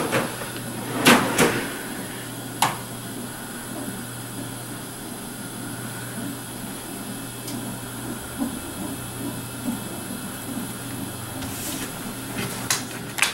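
Quiet room tone with a steady low hum and faint hiss, broken by a few knocks and rustles; the loudest pair comes about a second in, with another shortly after and a couple near the end.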